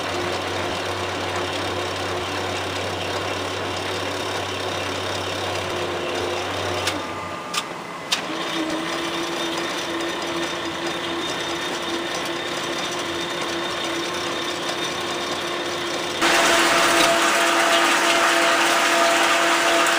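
Cincinnati Hypro planer's machinery running with a steady mechanical drone. Two sharp clicks come near the middle, and a few seconds before the end the sound steps up louder and hissier with a new steady tone.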